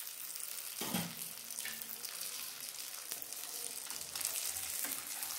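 Oil sizzling steadily under a banana-leaf-wrapped fish parcel shallow-frying in a nonstick pan, cooked on both sides. A wooden spatula knocks against the pan about a second in as the parcel is worked loose, with a few softer knocks later.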